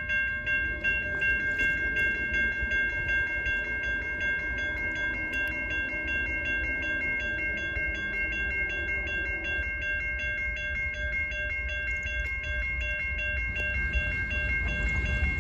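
Railroad crossing warning bell ringing in a fast, steady rhythm for an approaching freight train, over a low rumble that grows toward the end.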